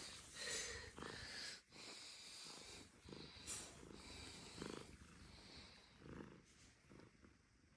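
Near silence: faint room tone with a few soft, brief breathy sounds.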